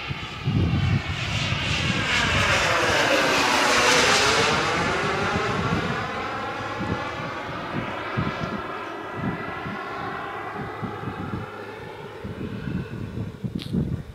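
KingTech K-45G2 kerosene gas turbine of a Mini Avanti S RC jet flying past. The jet noise swells to its loudest about four seconds in with a sweeping, flanging whoosh as the plane passes, then slowly fades as it flies away.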